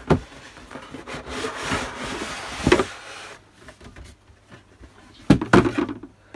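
Cardboard inner carton sliding out of its outer box sleeve: a scraping rub that swells over about two seconds and peaks in a knock, followed by two sharp cardboard knocks near the end.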